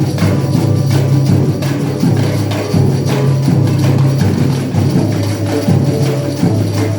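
A band rehearsing: music with held bass notes that change every second or so, under a steady run of percussion hits.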